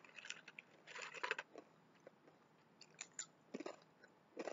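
Quiet, irregular crunching of crisp sesame sticks and soy crackers being chewed, in a few short bursts.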